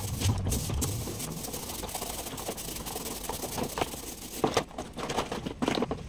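Plastic fan grille being scrubbed and handled in a plastic basin of water: scratchy scrubbing with light splashing and clattering, and a few louder knocks and splashes in the last two seconds.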